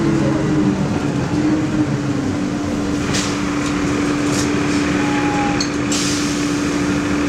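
Inside a 1997 Nova Bus LFS city bus on the move: steady engine and drivetrain drone with a constant whine over road rumble, and a few light rattles midway.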